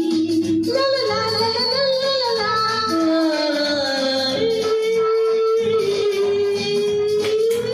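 Live singing through microphones over band accompaniment with a steady beat; the melody settles into one long held note through the second half.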